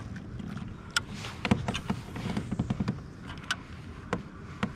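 Sharp clicks and knocks of a rod and spinning reel being handled aboard a kayak, with a quick run of ticks about a second and a half in, over a steady low wind rumble on the microphone.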